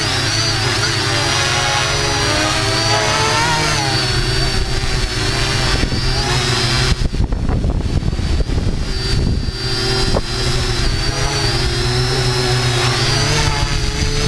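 Quadcopter drone's electric motors and propellers whining, recorded on board, their pitch rising and falling as it manoeuvres. From about halfway through, a rough fluttering noise joins in and the level jumps about.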